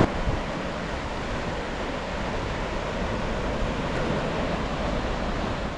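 Sea surf washing onto a sandy beach: a steady rush of small breaking waves.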